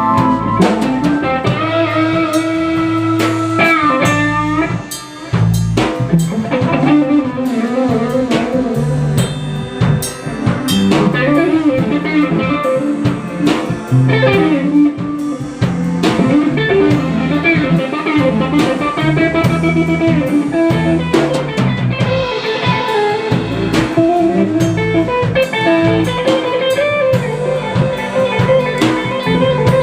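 Instrumental band music: a melodic guitar lead with bending notes over bass and a steady drum-kit beat, with a brief drop in loudness about five seconds in.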